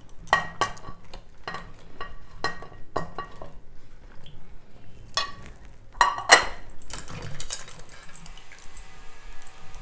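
Metal kitchen vessels and utensils clinking and knocking as trimmed button mushrooms are washed in a bowl of water. There is a run of sharp clinks over the first three seconds or so, and a louder cluster about five to six and a half seconds in.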